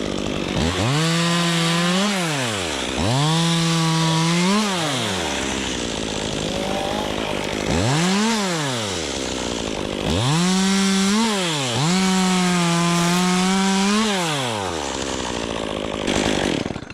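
Gas chainsaw cutting limbs, revved five times to full throttle, each held for a second or two and dropping back to idle between. A longer idle stretch comes in the middle.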